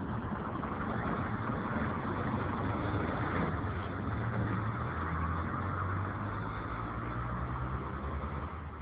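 An engine running steadily: a low hum, strongest in the middle, over a continuous rushing noise.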